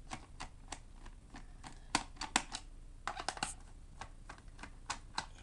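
Irregular small clicks and taps of a screwdriver and fingers on a laptop's plastic bottom case as its screws are being worked out.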